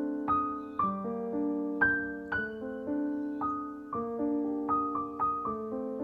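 Slow, gentle piano music, with notes struck about twice a second and left to ring.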